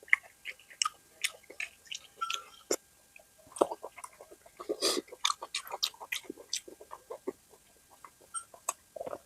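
Chewing and mouth smacking while eating mutton curry: an irregular run of short clicks and smacks, with louder bunches about three and a half and five seconds in.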